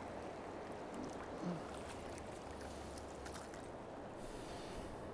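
Steady rush of flowing river water, with a few faint clicks in the middle and a brief higher hiss, like a small splash, near the end.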